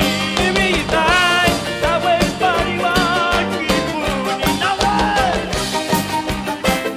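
Latin American folk band playing live: a melody line with vibrato over plucked and strummed strings and a steady low beat.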